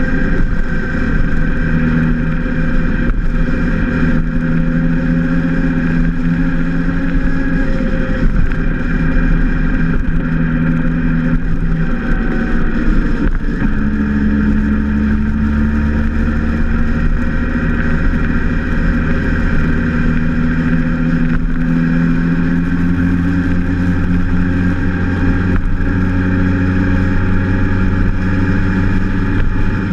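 Motorcycle engine running steadily at road speed, with its note shifting to a lower, stronger tone about halfway through.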